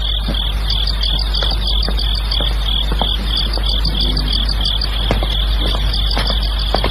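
Crickets chirping in a fast, even, continuous pulse over a steady low hum.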